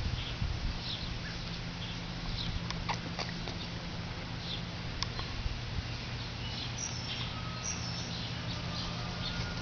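Outdoor ambience: faint, scattered high animal chirps over a steady low hum.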